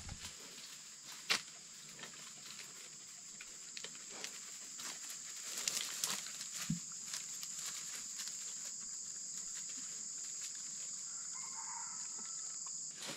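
A pig chewing and crunching small fallen fruits, with scattered crisp clicks and rustles in dry grass, over a steady high insect drone.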